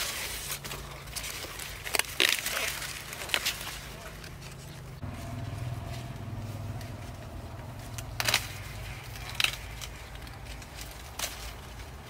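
Ears of corn being snapped off the stalks amid rustling corn leaves: several short, sharp cracks and rustles. A low steady hum runs underneath, louder from about halfway through.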